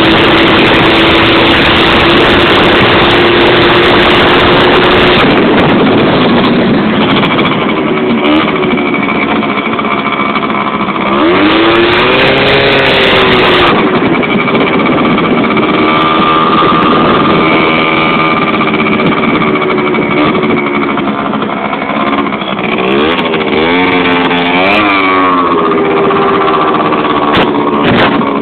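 Skateboard wheels rolling fast over asphalt, a loud steady rumble, joined by a motor-like tone that rises and falls in pitch several times.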